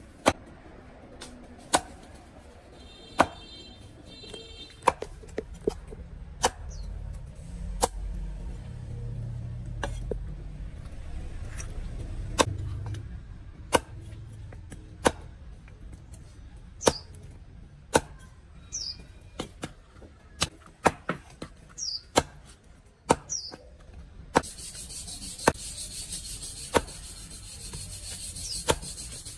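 Hand-forged cleaver chopping raw poultry on a thick round wooden chopping block: sharp, irregular chops, about one to two a second, each blow going through meat and bone into the wood.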